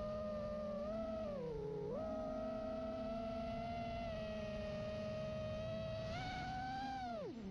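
FPV quadcopter's brushless motors and Dalprop propellers whining, the pitch sliding up and down with the throttle. There is a dip about two seconds in, a climb near the end, then a sharp drop as the throttle is chopped, before it spins back up.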